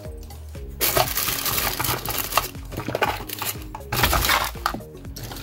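Small hard objects clattering and rattling as they are rummaged through and moved about on a workbench, a dense clatter lasting about three seconds with a few more knocks near the end.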